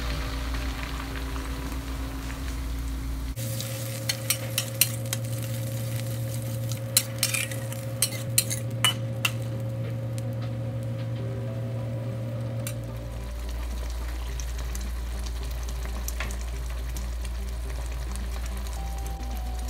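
Chilli paste sizzling as it fries in oil in a stainless steel wok, being cooked down until the oil separates. A spatula scrapes and clicks against the wok a dozen or so times from about four to nine seconds in as it is stirred.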